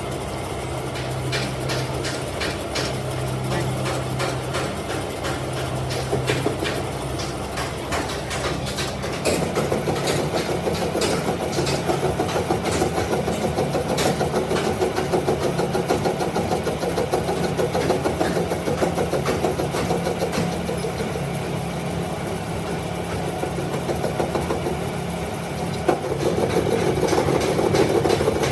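Workshop machinery running steadily with a low hum, pulsing at first, then turning busier and louder about nine seconds in and changing again near the end.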